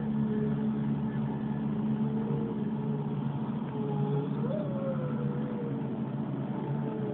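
Film soundtrack from a television: a steady low droning hum with a thin, wavering melody line gliding up and down over it.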